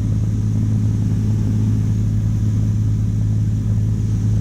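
Cessna 182's piston engine and propeller droning steadily in cruise, heard from inside the cabin, with a strong, even low hum.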